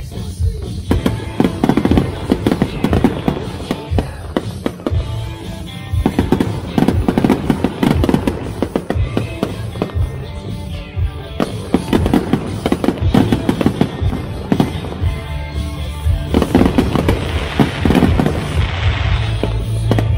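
Fireworks display with shells bursting in a rapid stream of bangs and crackles, and music playing along with the show. The bangs grow denser and louder near the end.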